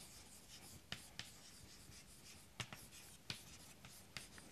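Chalk writing on a chalkboard, faint scratchy strokes with about five sharp taps as the chalk meets the board.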